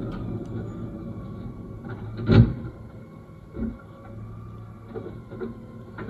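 Automated side-loader arm of a Mack garbage truck gripping a plastic wheeled garbage bin and lifting it, over the truck's steady engine hum. A loud clunk about two and a half seconds in, a second knock about a second later, and lighter knocks near the end as the bin rises.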